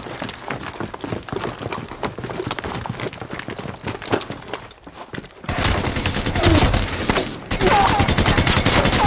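Running footsteps for about five seconds, then a sudden burst of sustained machine-gun fire with bullets striking masonry. The fire breaks off briefly about two seconds later and resumes.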